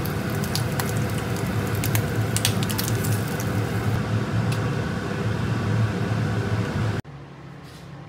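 Bacon sizzling and crackling in a nonstick frying pan: a steady hiss thick with sharp pops. It cuts off suddenly about seven seconds in, leaving only a faint hum.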